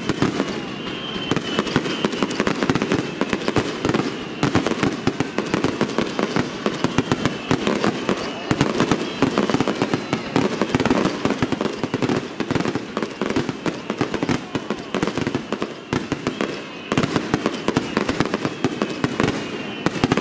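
Fireworks display in a dense barrage: many shell bursts and crackling stars going off in quick succession, with no let-up.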